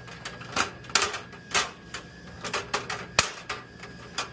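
Metal spiral vending-machine coil being twisted by hand on its motor mount, giving a series of irregular sharp clicks and clacks.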